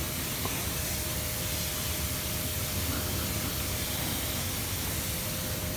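High-pressure water spray hissing steadily from a washer gun as the jet hits a motorcycle's bodywork and wheel, with a faint steady whine underneath.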